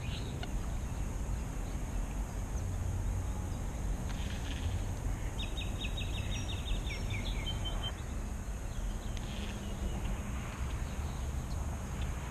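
Outdoor ambience at a pond: a steady low rumble, with a small bird giving a quick run of about ten high chirps about five seconds in, followed by a few scattered high notes.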